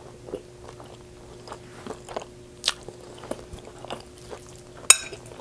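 Close-miked chewing of a mouthful of carne asada fries, with many small wet mouth clicks. Near the end, one sharp clink, the loudest sound, as a metal fork scoops into the glass bowl.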